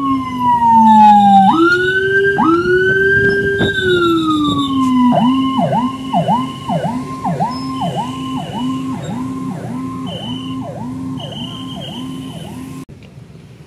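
Ambulance siren. It starts with a long slow wail that falls, jumps up and glides down again, then about five seconds in switches to a fast yelp of about two sweeps a second, and cuts off abruptly near the end.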